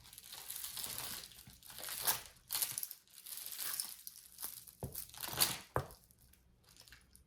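Plastic packaging crinkling and rustling as jewelry is pulled out and handled, in several swells, with a couple of sharp clicks about five and six seconds in.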